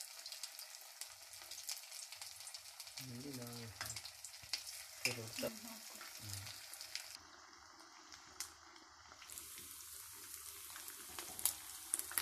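Mutton keema cutlets shallow-frying in hot oil in a kadai: a steady sizzle full of small crackles and pops, as more patties are laid into the oil.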